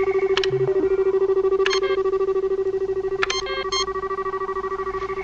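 Sci-fi computer console sound effect: a steady electronic tone pulsing rapidly, like a fast warble, with short electronic bleeps over it a few times.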